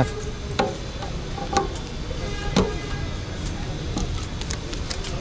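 Metallic clicks of a key and a motorcycle's locking fuel-tank cap being unlocked and flipped open. There are four sharp clicks about a second apart, then a quick run of lighter clicks, over a steady low rumble.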